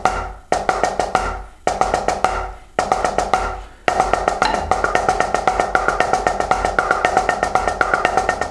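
Drumsticks striking a rubber practice pad in fast, even strokes: a few short runs that fade out and break off, then from about four seconds in a continuous run of strokes with some louder accents.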